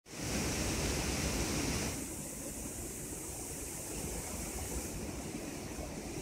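Steady rush of river water with a low wind rumble, louder and hissier for the first two seconds.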